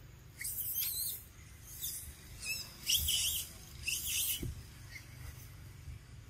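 Baby macaque giving about five high, wavering squeals in quick succession, ending about four and a half seconds in.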